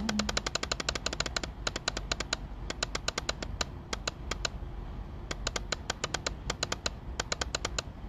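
Rapid runs of small plastic clicks from a computer mouse, about ten a second in several bursts with short pauses, as a file list is scrolled down.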